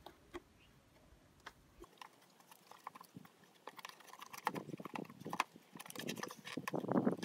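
A paper panel air filter being worked out of its plastic air box on a Renault Clio 1.5 dCi: a few scattered plastic clicks at first, growing into a busy run of clicks, knocks and rustling scrapes that is loudest near the end.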